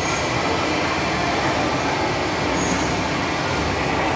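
Steady, even din of a busy indoor mall play area: kiddie rides, arcade machines and crowd noise blended into one rumble.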